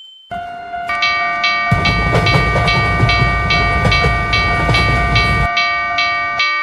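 Railroad crossing warning bell ringing over and over, about three strikes a second. A train rumbles past with a clatter from about two seconds in until about a second before the end, and the bell then stops abruptly.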